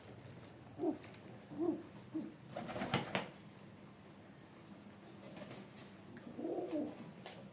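Pigeon cooing: a few short, low calls in the first couple of seconds and a longer coo near the end, with a brief noisy flutter about three seconds in.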